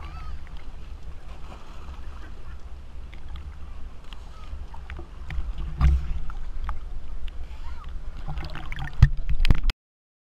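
Sea water sloshing and splashing against a waterproof action camera held at the surface while swimming: a steady low rumble with sharp splashes around the middle and near the end, then the sound cuts off suddenly.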